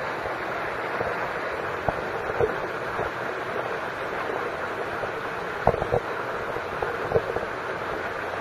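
Steady rushing of water in a rocky stream, with a few faint knocks and splashes as the swimming animals move through the water and onto the rocks.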